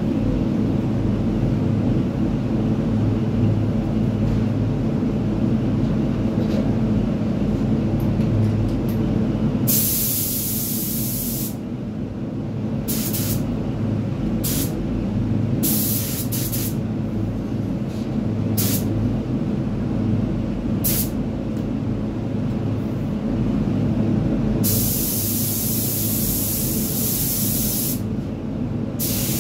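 Gravity-feed paint spray gun hissing with compressed air: several short bursts of a second or less, then a longer pass of about three seconds near the end. Under it the spray booth's fans keep up a steady low rumble.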